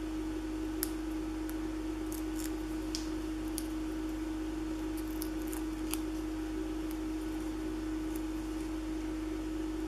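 Small paper embellishment being handled and pressed onto a cardstock scrapbook page, giving scattered faint clicks and crinkles at irregular intervals. A steady electrical hum runs underneath.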